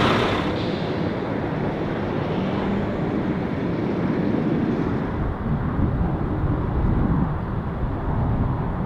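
Military tactical vehicle driving away over dusty ground: a steady low engine rumble with tyre noise, its higher sounds fading in the first half-second as it pulls away.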